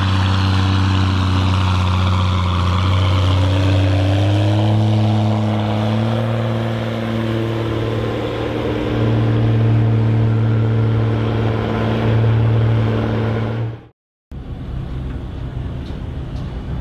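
John Deere 7810 tractor's diesel engine held at full throttle: a loud, steady drone whose pitch steps up slightly about four seconds in. Near the end it cuts off suddenly and a quieter rumble follows.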